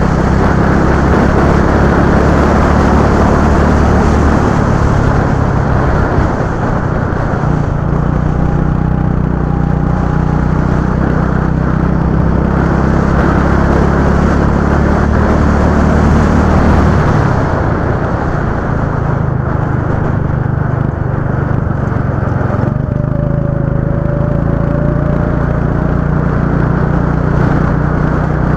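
Go-kart engine running steadily, its note dropping a little about 4 seconds in, falling away around 17 seconds in and picking up again about 23 seconds in as the throttle eases and reopens.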